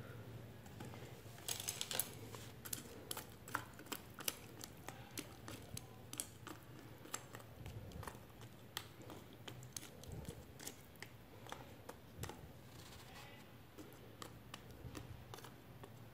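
Chopsticks clicking and scraping against a stainless steel pot while pressing down fish and bulbs in water: faint, scattered light clicks, at times several a second.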